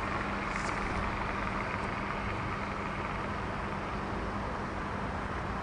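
Steady background room tone: a constant low rumble with a faint steady hum underneath.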